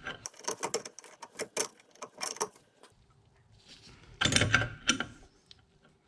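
Ratchet wrench with a 5/8 socket clicking in quick strokes as a fitting on a brake master cylinder is tightened, followed about four seconds in by a louder cluster of metal knocks from the tool against the fitting.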